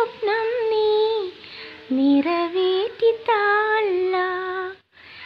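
A solo high-pitched voice sings a Malayalam madh song in praise of the Prophet, unaccompanied, in long ornamented melodic phrases. There is a brief break for breath near the end.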